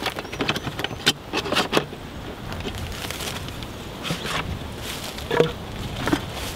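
Metal clamp ring of a plastic barrel being unclipped and the plastic lid worked loose and lifted off: a run of small clicks and metallic rattles, with a sharper click about five seconds in.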